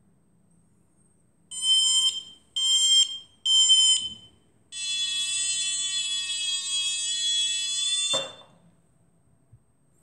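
Electronic free-flight variometer sounding its audio signal as it is moved up and down: three short buzzy beeps, then one steady tone of the same pitch lasting about three and a half seconds that cuts off sharply. By the usual vario convention the beeping signals climb and the steady tone sink.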